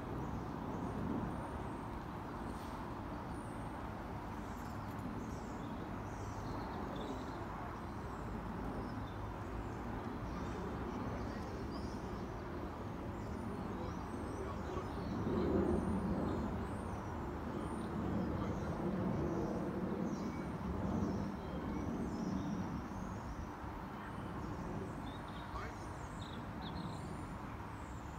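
Outdoor background: small birds chirping repeatedly over a steady low distant rumble, which swells for several seconds around the middle.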